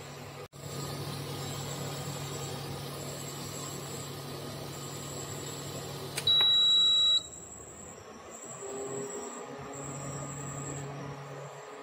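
Induction cooktop humming under a pot of herbal decoction at a rolling boil. About six seconds in comes one loud, high electronic beep lasting about a second, and after it the bubbling settles while a low hum carries on.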